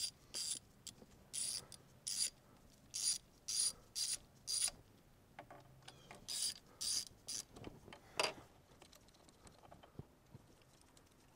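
Socket ratchet clicking in about a dozen short bursts of back-strokes as the bolts of the EGR valve are loosened, with one sharper clack near the end, after which it goes quiet.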